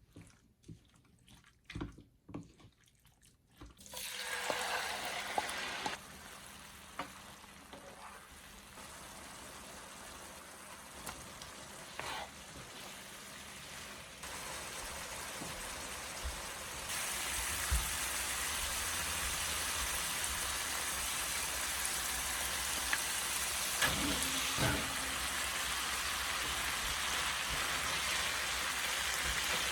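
Food sizzling in a frying pan: a few light clicks, then a steady sizzle that starts about four seconds in and gets louder in steps, with occasional knocks.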